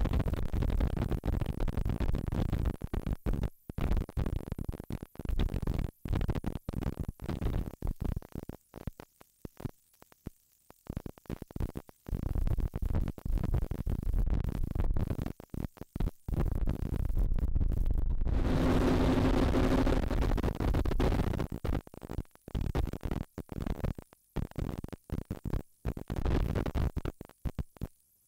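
Wind buffeting the microphone aboard a 35-foot Fountain powerboat running at speed, over the rumble of its twin 525 hp big-block engines and rushing water; the sound keeps cutting out and coming back. About 18 seconds in, the engines' drone comes through as a steady pitched hum for a few seconds.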